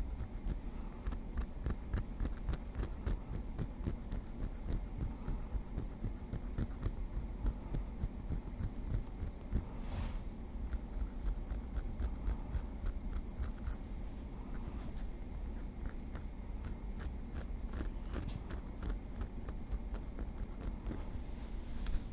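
Small wooden stick making a quick, continuous run of light taps and clicks, several a second.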